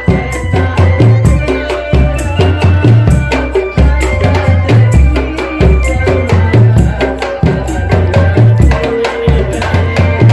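Loud, continuous music with steady drumming and percussion over a heavy stepping bass line and a held melody.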